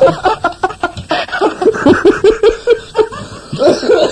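People laughing hard: a string of quick, pitched ha-ha pulses that die down near the end.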